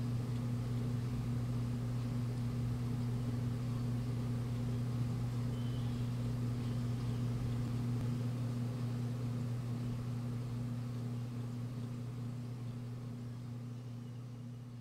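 A steady low hum with a fainter higher hum above it, over a faint hiss, fading gradually in the last few seconds.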